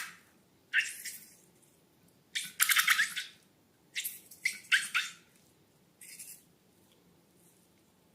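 Slime being squished and worked by hand, heard as a run of short wet, crackling squelches. The longest comes about three seconds in, and the squelches stop after about six seconds.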